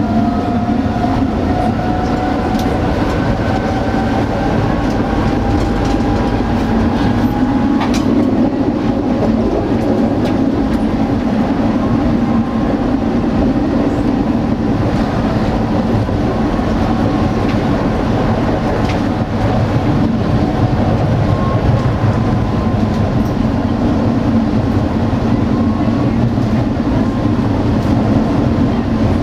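Tatra T4D tram running along the track, heard from inside the driver's cab: a steady rumble of wheels on rail, with a whine that rises in pitch over the first eight seconds or so and then fades. A few sharp clicks from the rails break through now and then.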